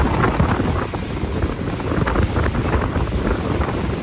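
Wind buffeting the microphone aboard a tour boat under way, over the rush of water against the hull.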